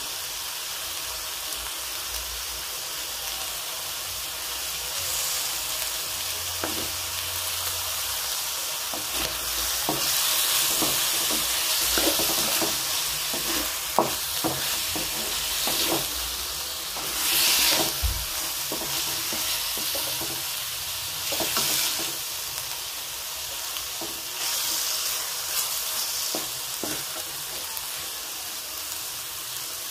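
Chicken livers sizzling as they fry in a wok, stirred and turned with a wooden spatula that knocks and scrapes against the pan. The sizzle swells several times during the stirring, loudest around the middle, with a sharp knock about halfway through.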